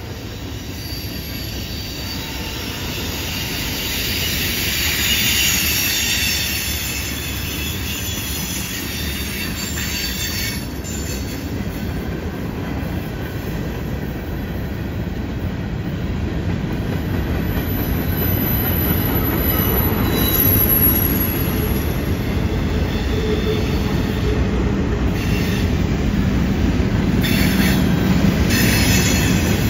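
Freight cars of a long train rolling past on a curve, a steady rumble of steel wheels on rail. High-pitched wheel squeal from the flanges grinding through the curve is strongest about five seconds in. The rumble grows louder toward the end.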